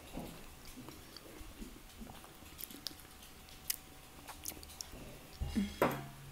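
Close-up chewing of a mouthful of soft, buttery mashed potato, with faint scattered clicks from the fork. A short burst of voice comes near the end.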